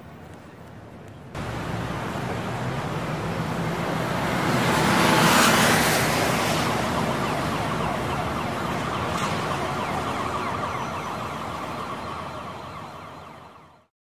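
Street traffic: a vehicle passing, swelling to its loudest about five seconds in, then fading away near the end.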